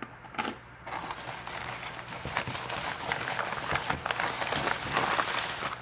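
Packaging being handled and rummaged through: a dense, continuous run of crinkling crackles and small clicks that starts about a second in.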